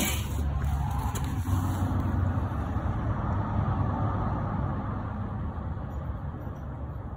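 Steady low rumble, with a brief rustling burst right at the start.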